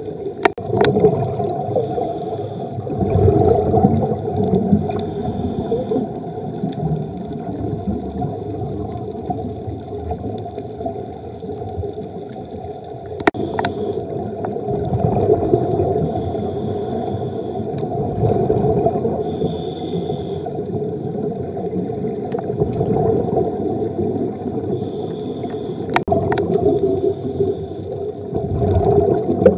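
Underwater sound of a scuba diver breathing through a regulator: a low bubbling rumble of exhaled bubbles that swells and fades, with short hisses of inhalation every few seconds. A few faint clicks.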